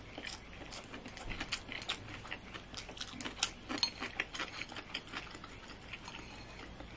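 Quiet chewing of a mouthful of kimbap, heard as scattered small mouth clicks.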